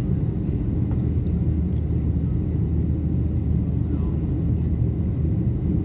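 Steady low drone of jet engines and rushing air heard inside an airliner cabin, climbing after takeoff.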